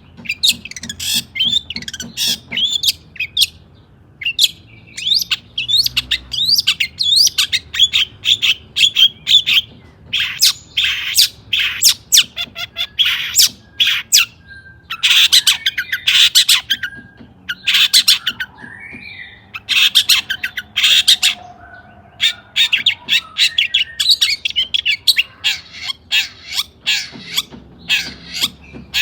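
Long-tailed shrike (cendet) singing in full, excited song: fast runs of harsh rasping notes mixed with quick whistled chirps and trills, delivered in bursts with short pauses between phrases.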